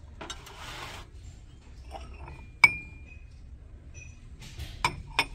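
Ceramic dishes clinking as they are handled on a store shelf: a brief scrape early on, one sharp clink that rings on for a moment about halfway through, and two lighter clinks near the end.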